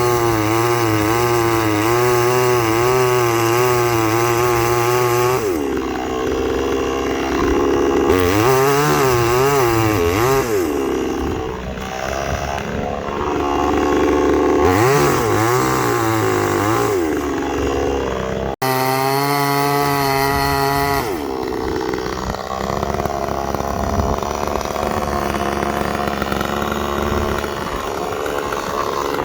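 A chainsaw held at high revs, then cutting into dead wood, its pitch sagging and recovering again and again under load. After a sudden break about two-thirds through, it revs high again and goes back into the cut.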